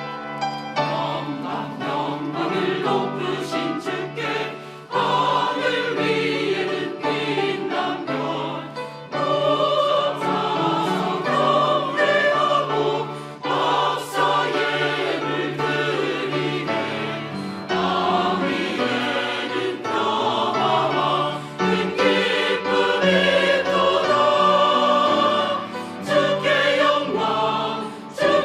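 A choir singing a hymn of praise with keyboard accompaniment, several voices holding sustained notes over a steady bass line.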